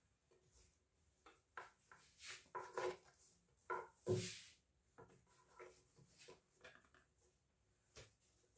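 Hands kneading chebakia dough in a glazed clay dish: faint, irregular soft pressing and rubbing sounds, with a slightly firmer one about four seconds in.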